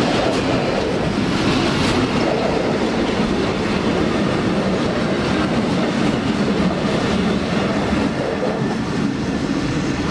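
Freight hopper wagons rolling past at speed, a steady loud rattle and rumble of wheels on the rails.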